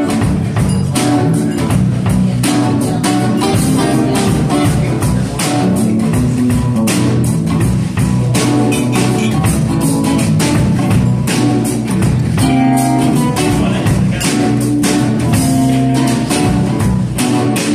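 Live concert music with a steady beat.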